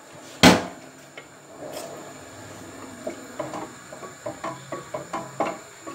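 A single sharp knock about half a second in, then a spoon working in a steel stockpot of tomato meat sauce, with a quick run of light taps and scrapes against the pot.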